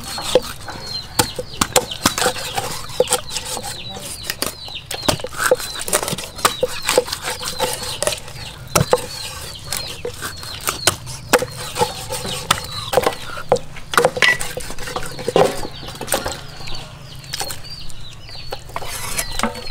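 Cleaver chopping through a fish on a wooden chopping board: many sharp, irregularly spaced knocks, with chickens clucking and chirping in the background.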